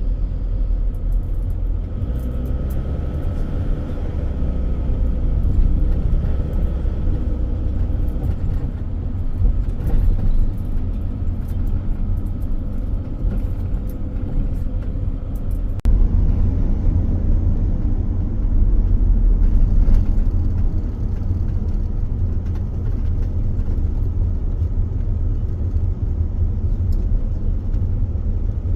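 Steady low rumble, like a vehicle in motion, with an abrupt change in the sound about sixteen seconds in.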